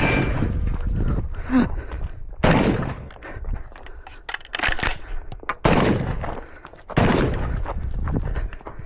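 Rifle shots fired one after another at uneven intervals, about six in all, including a quick pair near the middle, each followed by a short echoing tail.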